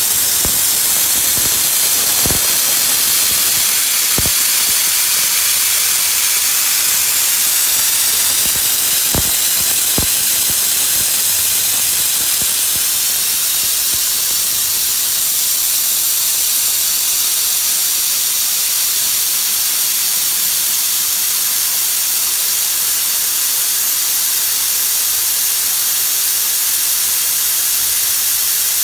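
Steady loud hiss of compressed air-assist blowing from the nozzle of a 150 W CO2 laser head as it cuts through 18 mm birch plywood. A few soft clicks in the first ten seconds.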